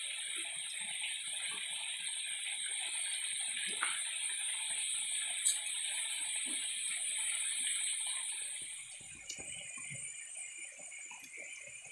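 Steady high-pitched insect buzzing, like a cicada chorus, with a few faint clicks from handling mangoes; the buzzing drops in level about nine seconds in.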